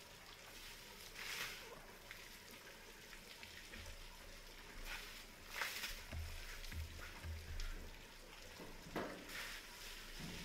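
Water from a garden hose splashing into a bucket and puddle, with about three short louder splashes as an elephant sprays water with its trunk, and a few low thuds about two-thirds of the way through.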